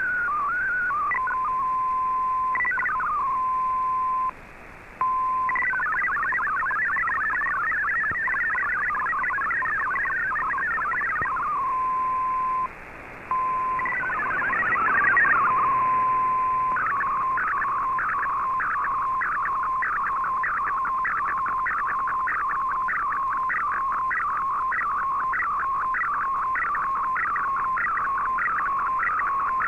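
Shortwave MFSK64 digital-mode broadcast audio from a communications receiver: warbling data tones between about 1 and 2 kHz, broken by a steady 1 kHz tone and two short dropouts, with a brief swell of static near the middle. From about two-thirds of the way in, it becomes a fast, even run of rising chirps, about three a second, as an MFSK picture is sent line by line.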